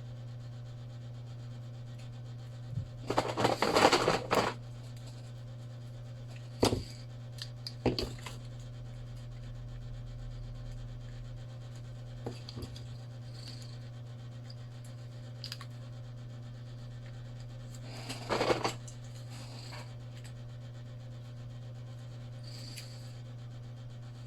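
Small tools or phone parts being handled during a phone repair: a few short bursts of scraping and rubbing, with sharp clicks in between, over a steady low hum.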